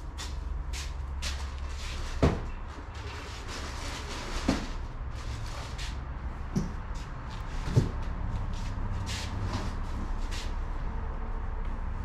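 Parts boxes and packaging being handled and rummaged through on top of a tool chest: cardboard and plastic rustling with several knocks, the sharpest about two seconds and nearly eight seconds in, over a steady low hum.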